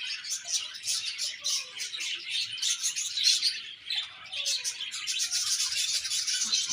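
A colony of budgerigars chirping and warbling together, a dense, continuous chatter of many overlapping birds.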